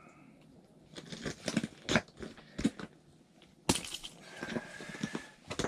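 Crackling, crumpling handling noises: a run of sharp clicks and rustles, then one louder sharp knock a little past halfway, followed by softer rustling.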